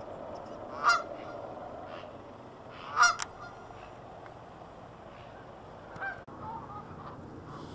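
A flock of Canada geese honking: two loud honks about a second and three seconds in, softer calls from the flock around six seconds in, and faint honking throughout.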